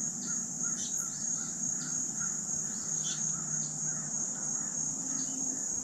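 Steady, high-pitched chorus of crickets or similar insects, with soft repeated chirps and a faint low hum underneath.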